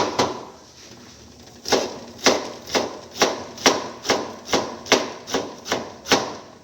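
Kitchen knife chopping scallion on a cutting board: one chop at the start, then after a short pause a steady run of about eleven chops, roughly two a second.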